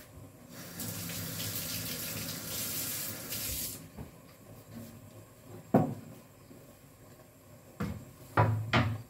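Kitchen tap running into the sink for about three seconds, then stopping. Afterwards a few sharp knocks of things being handled on the counter, the loudest around six seconds in and a quick cluster near the end.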